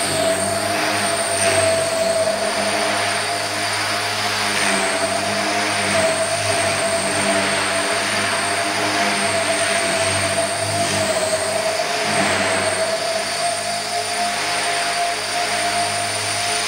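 Radio-controlled Phoenix model helicopter in flight: a steady, high motor whine with the drone of its spinning rotor blades, its pitch wavering slightly as it manoeuvres.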